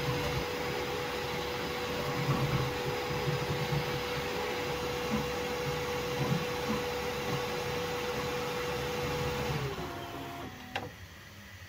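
Bambu Lab P1S 3D printer running while printing a Benchy: a steady whirring with a thin whine and throbbing motor noise. About nine and a half seconds in, the whine slides down in pitch and the running noise drops away, followed by a single click.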